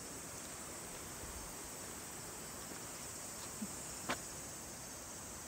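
Steady high-pitched drone of insects in summer foliage, with one brief click about four seconds in.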